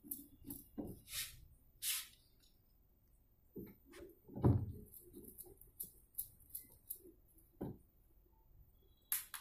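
Screwdriver tightening screws into a washing machine's back cover: scattered clicks and short scrapes, with one dull thump about four and a half seconds in.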